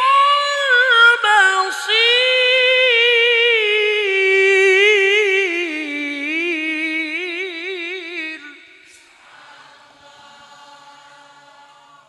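A male qari reciting the Qur'an in a melodic, sung style through a microphone and loudspeakers, drawing out the end of the verse 'innahu huwa as-sami'ul-basir' in one long ornamented note. The note wavers rapidly and sinks slowly in pitch, then breaks off about eight and a half seconds in.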